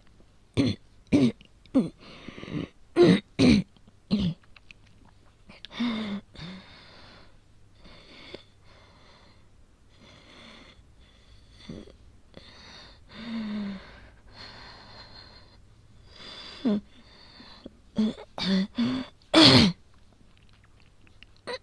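A woman with an asthma attack coughs in a short hacking fit of about six coughs, then takes laboured, wheezing breaths. Near the end comes another burst of coughs.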